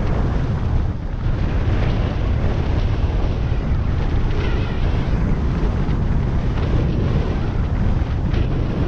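Wind buffeting the microphone of a camera carried by a moving skier, a steady low rumble, with skis hissing and scraping over packed snow.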